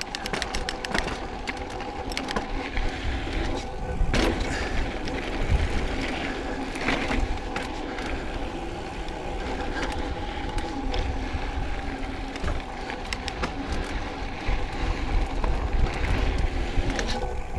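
Mountain bike riding down a dirt trail: rumble of tyres and wind with rattles and knocks over bumps, under a steady hum.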